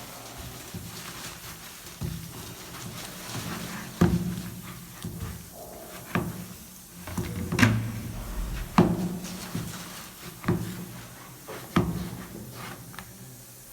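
Pastry dough being mixed and worked by hand in a bowl, with dull knocks about every second or two as it is pressed and turned.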